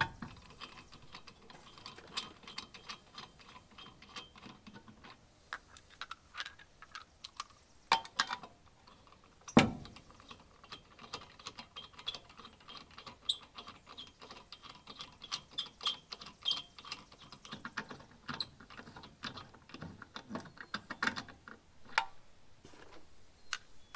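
Steel lug nuts clinking and rattling as they are handled and threaded onto a truck's wheel studs by hand, with many small metallic clicks and one louder knock about ten seconds in.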